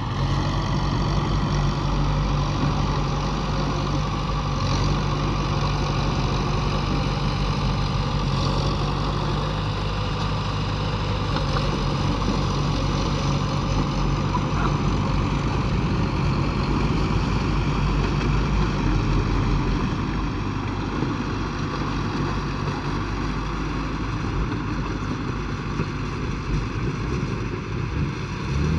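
Heavy diesel engine of construction machinery running steadily at low revs; its low rumble eases off somewhat about two-thirds of the way through.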